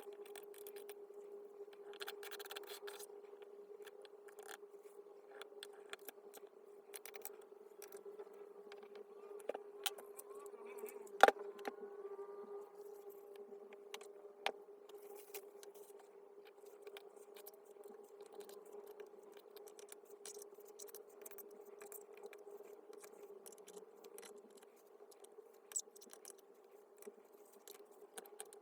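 Small metal parts clicking, clinking and scraping as a reciprocating saw is worked on by hand, with a sharp click about 11 seconds in and a few smaller ones. A steady hum runs underneath.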